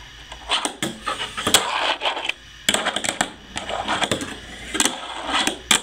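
Hard objects knocking, clicking and scraping on a wooden desk under quick hand movements: an irregular run of sharp clicks with short scrapes between them.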